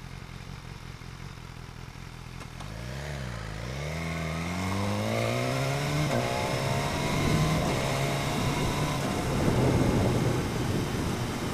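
BMW S1000R's inline-four engine idling, given a quick blip of throttle about three seconds in, then accelerating away with a rising note. The pitch breaks at a gear change about six seconds in, and the engine then runs at a steady note under rising wind noise.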